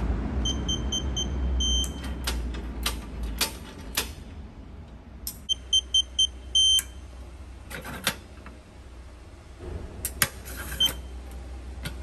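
EGFirtor electronic keypad cabinet lock beeping as a code is keyed in: four short beeps, one per key press, then a longer beep, heard twice. Scattered clicks fall between the beep runs, and a single beep comes near the end.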